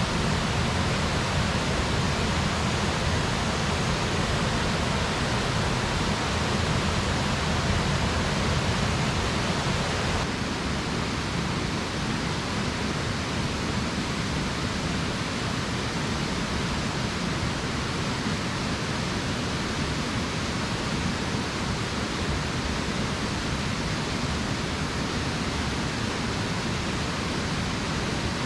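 Rushing water of a mountain stream, a steady full hiss that steps down a little in level about ten seconds in.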